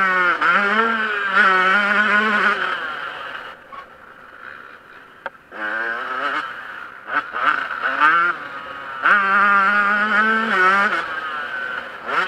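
Yamaha YZ125 single-cylinder two-stroke motocross bike engine at high revs, the pitch wavering as the throttle works over the track. It drops off to a lower, quieter note in the middle, then the rider opens the throttle again twice, the pitch rising each time.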